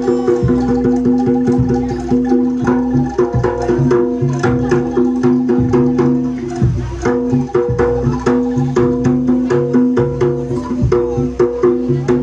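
Live jaranan music: a gamelan-style percussion ensemble playing fast, even, repeated strokes on pitched gongs with drumming and a steady held note underneath.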